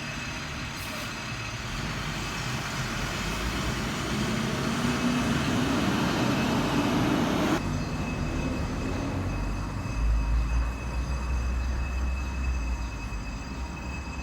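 Heavy vehicle noise in city traffic: a loud rush with an engine note rising in pitch, cut off abruptly about halfway through, followed by a deep low rumble.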